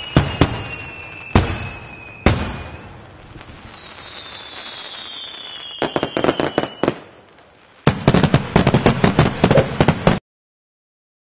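Aerial fireworks going off: several sharp bangs, long whistles falling slowly in pitch, then rapid crackling salvos, ending abruptly near the end.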